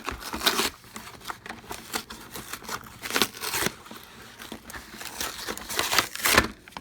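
Plastic packaging of a socket bit set being crinkled and pulled open by hand, in several short irregular bursts, the loudest near the end.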